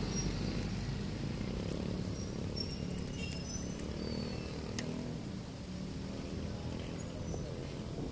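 Motorcycle engine running steadily while riding along in traffic, with road noise.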